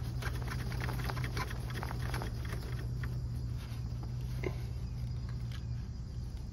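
Brass reversing valve and copper tubing clicking and tapping as they are handled and fitted onto the pipe stubs, mostly in the first half, over the steady hum of an electric fan.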